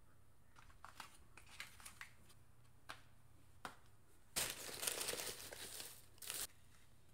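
A few light clicks and taps of small packaging being handled, then about a second and a half of loud crackling rustle as crinkled paper shred filler is disturbed while a boxed item is lifted out of a gift box, with one more short rustle near the end.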